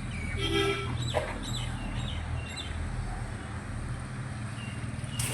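Steady low hum from a motor or vehicle, with a few short bird calls in the first second and a half.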